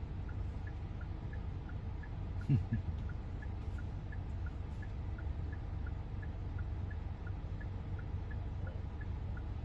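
Inside a stopped car: the low rumble of the running car, with the indicator clicking in an even tick-tock of about three clicks a second. One brief louder low sound comes about two and a half seconds in.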